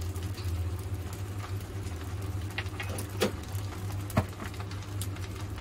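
Salted egg yolk frying gently over low heat, a soft sizzle while it is stirred in the pan, with a few sharp clicks of the utensil against the pan, the loudest about four seconds in. A steady low hum runs underneath.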